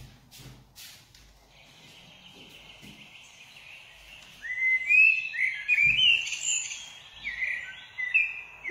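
Recorded song of a common blackbird played back: a faint hiss, then from about four seconds in a run of fluting, whistled phrases.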